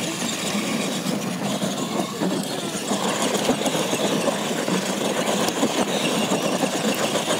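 Two radio-controlled monster trucks racing side by side on loose dirt: a steady, dense mechanical noise of their motors, gears and tyres scrabbling over the dirt.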